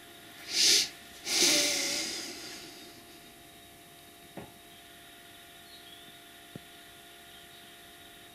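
Two loud breath noises from a person close to the microphone: a short one, then a longer one that fades out over about a second and a half. Underneath runs a faint steady high tone, which sounds a bit like tinnitus. Two small clicks come later.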